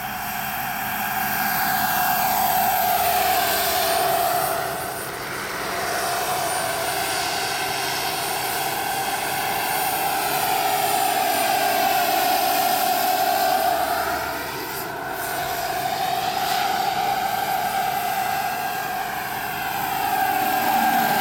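High, steady turbine whine of a quarter-scale Vario EC 145 RC model helicopter's JetCat PHT3 turboshaft in flight. The sound swells, fades and sweeps in pitch as the helicopter moves about, dipping briefly twice.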